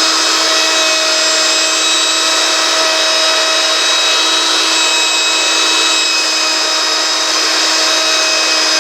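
Blender motor base running at a steady speed as a homemade fan, a steady high-pitched motor whine over a hiss.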